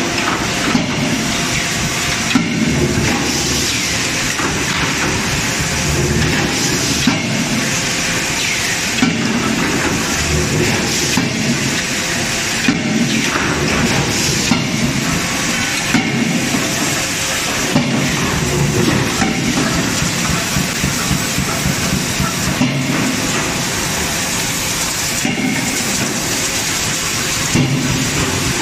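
Hot die-forging shop at work: heavy blows from a CNC die-forging hammer and presses about every second or two, irregularly spaced, over a constant loud hiss.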